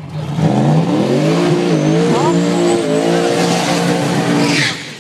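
GMC Sonoma drag truck's built twin-turbo 421 V8 revved hard in a burnout, held at high revs with the rear tyres spinning and squealing. The engine comes up about half a second in and is cut off sharply shortly before the end.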